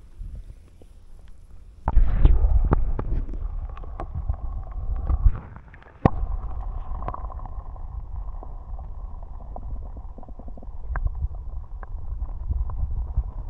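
Muffled gurgling and low rumbling of river water heard through a camera dunked underwater, with scattered clicks and knocks against the housing. It starts suddenly about two seconds in.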